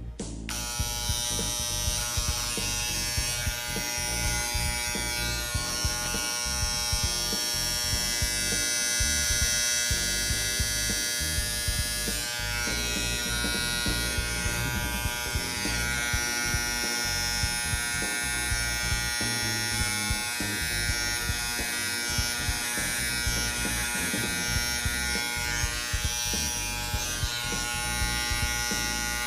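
Andis T-Outliner trimmer fitted with a Nice Barber Silver Horse blade held on by round-head screws, switched on a fraction of a second in and then running steadily: a buzzing hum with a high whine. Its sound is judged just okay, but a little loud.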